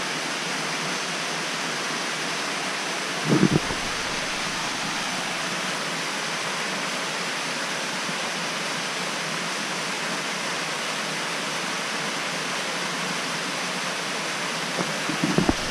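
Waterfall spilling over a rock ledge into a pool: a steady, even rush of falling water. A short low buffet cuts in about three seconds in, and more start near the end.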